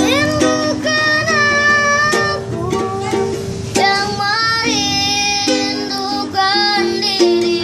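A child busker singing a slow, lilting song with wavering held notes, accompanied by a strummed small string instrument.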